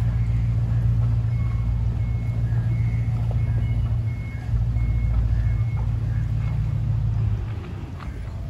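Bumboat engine running with a steady low hum, easing off about seven and a half seconds in.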